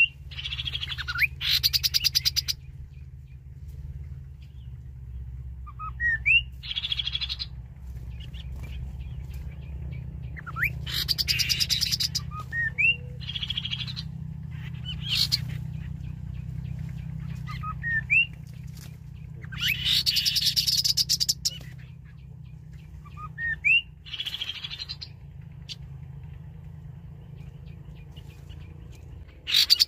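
Rufous-capped babbler song played as a lure through a loudspeaker: short rising whistles alternating with dense, fast trilled phrases of a second or two, repeated several times. A steady low hum runs underneath.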